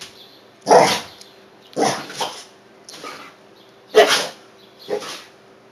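American Staffordshire terrier-type dogs play-fighting, giving about six short barks, roughly one a second. These are play barks during rough-and-tumble play.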